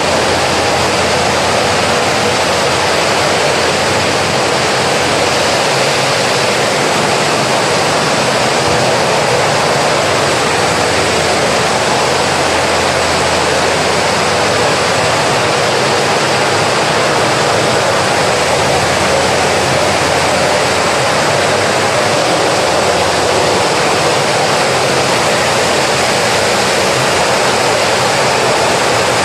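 An automatic carton folder-gluer running steadily: a loud, even rushing noise with no breaks.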